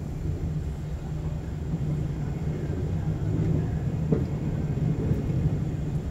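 Sleeper express train running at speed, heard from inside a passenger car: a steady low rumble of the wheels on the rails, with one short click about four seconds in.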